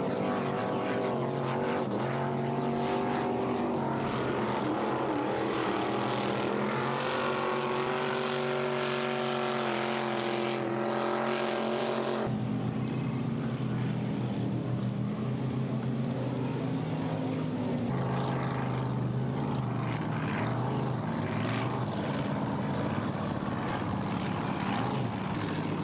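Racing ski boats' inboard engines running hard at speed, a steady loud drone that changes abruptly about twelve seconds in and again a few seconds later as a different boat is heard.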